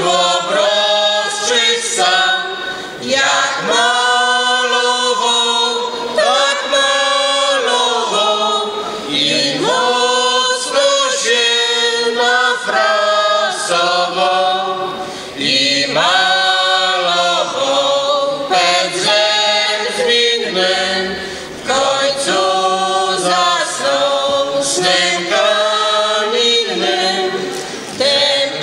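A folk ensemble of women's and men's voices singing a Polish traditional folk song a cappella, in long held phrases with short breaks for breath between them.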